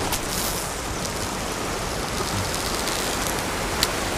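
Ocean surf washing steadily against a rocky lava shoreline, with one brief click near the end.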